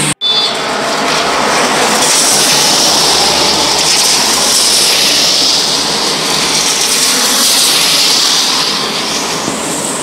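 Road traffic on wet asphalt: tyres hissing on the rain-soaked road, swelling for several seconds as vehicles pass and easing near the end.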